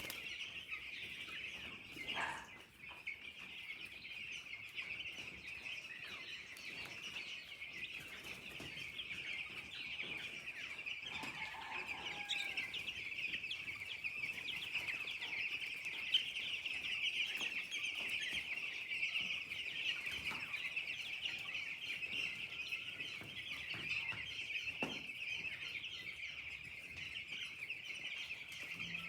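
A large flock of young chicks peeping continuously, a dense chorus of high chirps, with a brief knock about two seconds in.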